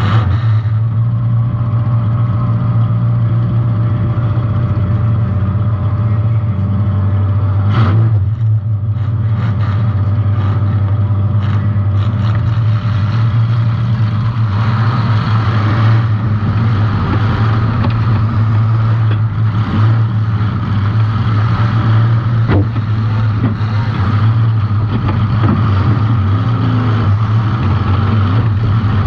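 Compact demolition derby car's engine running hard at a steady high speed, with a sharp bang of an impact about eight seconds in and a smaller one near the end.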